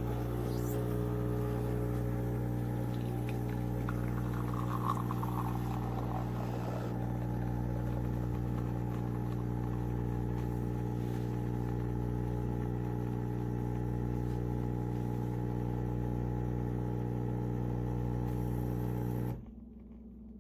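CHULUX Slim espresso machine's pump running with a steady mechanical hum, then cutting off abruptly near the end.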